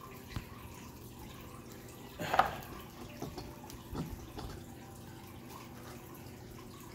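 Handling noises from a plastic miniature turned and held in the fingers close to the microphone: scattered small clicks and taps, with one louder short noise about two seconds in.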